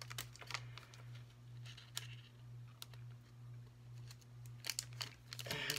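Soft crinkles and clicks of a cellophane bag holding a card being handled and closed at its flap, in scattered bunches with the busiest handling near the end, over a steady low hum.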